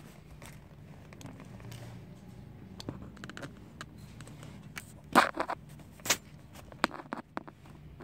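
Scattered sharp clicks and knocks of hand tools and metal parts being handled against a scooter's steel frame while a ground wire is bolted on. The two loudest come about five and six seconds in, with a few smaller ones just after.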